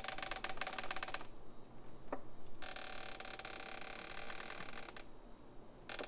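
Rocking chair squeaking and creaking as it rocks, in long drawn-out creaks: one fades out about a second in, another runs from about two and a half to five seconds, and a third starts near the end. A single short tick comes at about two seconds.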